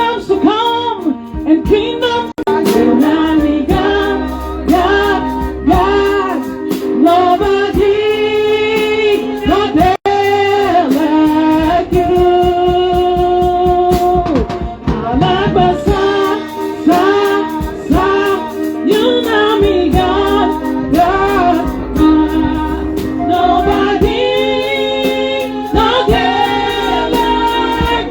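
Gospel worship song with female lead and choir singing over keyboard, bass and drums.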